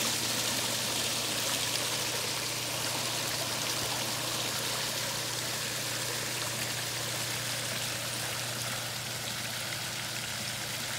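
Water pouring in a sheet over the edge of a steel trough water feature and splashing into the basin below: a steady rushing splash that grows slightly quieter toward the end.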